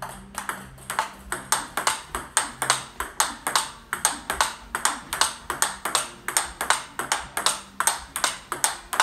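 Table tennis rally of forehand drives: the ball clicks off rackets fitted with Butterfly Dignics 09C rubber and bounces on the table in a steady, unbroken rhythm of about four clicks a second.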